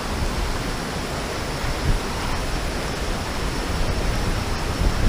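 Fast mountain river rushing over rocks, a steady noise of running water, with some wind rumbling on the microphone near the end.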